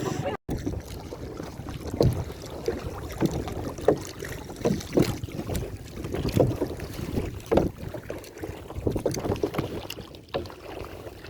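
Canoe paddling: paddle strokes dipping and splashing in the water at an uneven pace, about one a second, with wind on the microphone.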